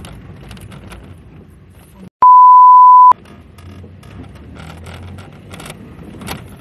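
A censor bleep: one loud, steady beep about a second long, starting a little after two seconds in, covering a swear word. Around it, the steady road rumble inside a moving car.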